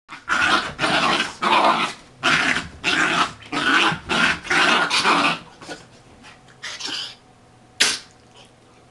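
Two dachshund puppies growling in rough play-fighting: a rapid run of harsh growls for the first five seconds, then quieter, with one short sharp sound near the end.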